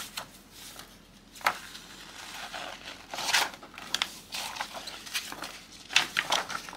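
Paper pattern pages being flipped and handled, rustling several times, most strongly about a second and a half in, around three seconds in and again near six seconds.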